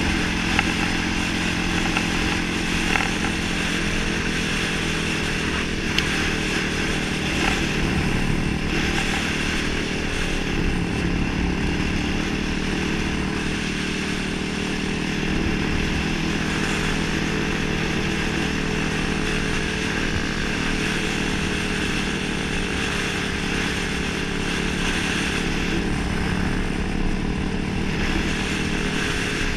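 Yamaha YFZ450R quad's single-cylinder four-stroke engine running at a fairly steady pitch while riding along, heard close up from on board, with only mild rises and dips in engine speed.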